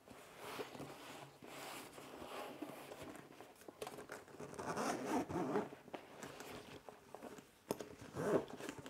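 Zipper on a fabric drone carrying bag being pulled open around the bag in a run of short rasping pulls, with fabric rustling.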